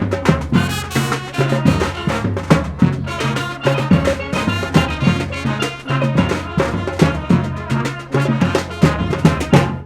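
Street band music: drums with a steady beat under brass. The music cuts off suddenly at the end.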